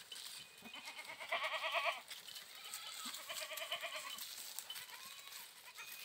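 A goat bleating twice, two quavering calls about two seconds apart, over faint scattered clicks.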